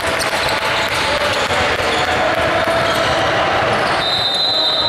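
Basketball being dribbled on a hardwood gym floor during play, with sneakers squeaking and the sound echoing around the hall. A steady high-pitched tone sets in near the end.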